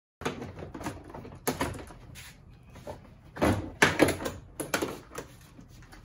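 Plastic interior door trim panel of a Nissan Xterra being worked free and lifted off the door: a string of irregular knocks and clicks with rustling in between, the loudest knocks about three and a half and four seconds in.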